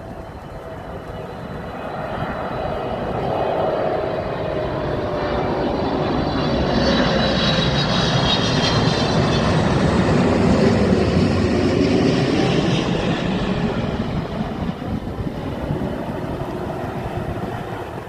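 Eva Air Boeing 777 twin-engine jet airliner flying past, its engine noise building to a peak about midway and then fading. A high whine from the engines rides on top and falls in pitch as the aircraft passes.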